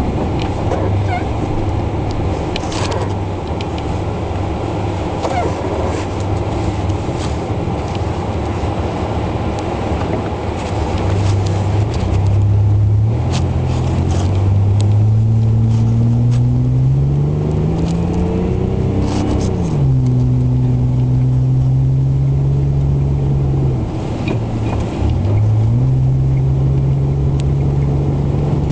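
Vehicle engine over a steady rushing noise. Partway through, the engine's pitch climbs steadily for several seconds as it revs, drops suddenly, then holds steady, dips briefly near the end and picks up again.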